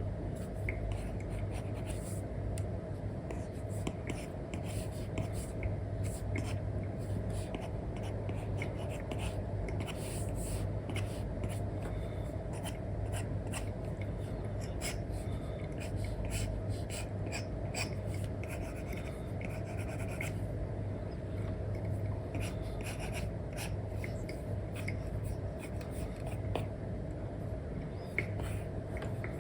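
Apple Pencil tip with an Elecom nib scratching and tapping on an iPad's paper-like screen film in many short strokes, over a steady low hum.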